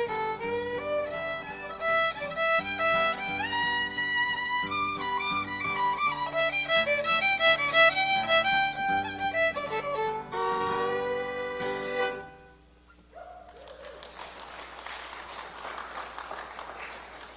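Fiddle and acoustic guitar playing a quick dance tune, ending on a long held note about twelve seconds in. A few seconds of scattered clapping follow.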